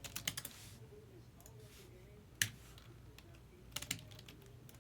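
Computer keyboard typing in short bursts: a quick run of keystrokes at the start, a single sharp keystroke about two and a half seconds in, and another short run near the end.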